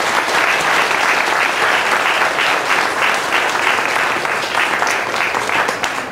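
Audience applauding, a steady run of hand claps that begins to thin out near the end.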